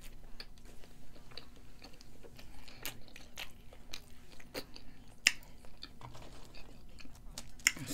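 A person chewing a mouthful of cheeseburger, with scattered wet mouth clicks and smacks; one sharper click about five seconds in.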